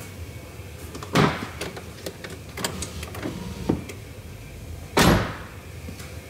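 Power windows of a 2006 Ford F150 being cycled from a new master switch: small switch clicks over a low hum, with two loud thumps, one about a second in and one near the end.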